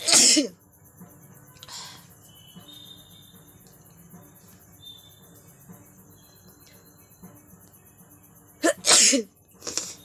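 A woman sneezing loudly, twice: once right at the start and again about nine seconds in, each a quick voiced intake-and-blast, with a shorter burst just before the end. The sneezes are brought on by tickling inside her nose with a thin stick.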